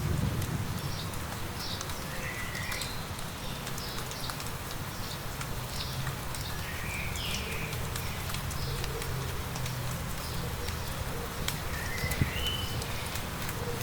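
A songbird calling outdoors in light rain: short repeated high notes, and three times a longer sliding call, over the steady patter and hiss of rain, with scattered drop ticks.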